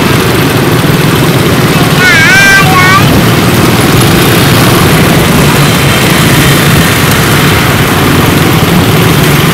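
Honda Win motorcycle's small single-cylinder four-stroke engine running steadily under way, with wind noise and surrounding scooter traffic. About two seconds in, a brief wavering high-pitched sound cuts through for about a second.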